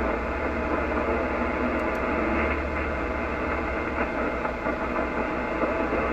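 Shortwave radio receiver putting out steady hiss and static from the 10-meter amateur band through its speaker, with the sound cut off sharply in the treble by the receiver's voice filter. A low steady hum runs underneath.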